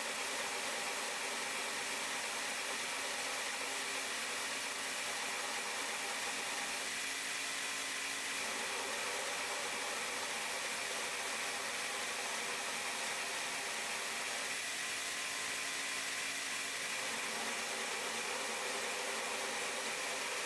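A steady, even whirring hiss of a running machine such as an electric motor or fan, swelling slightly twice in the middle.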